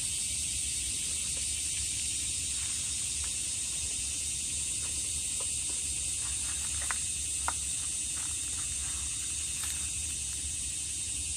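Steady high-pitched hiss of insects, with a low rumble beneath and a few faint clicks near the middle.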